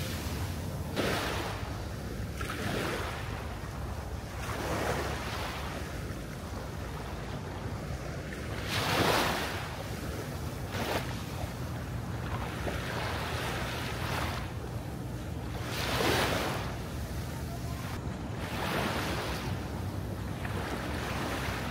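Sea waves washing onto a beach, each wave swelling and fading every few seconds over a steady low rumble.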